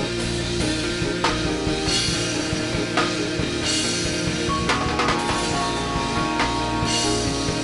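Worship music: a drum kit keeps a steady beat with repeated cymbal crashes over sustained held chords.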